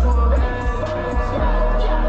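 Hip-hop track with a deep, sustained bass line and a melodic line above it; the bass drops back for about a second near the middle, then returns.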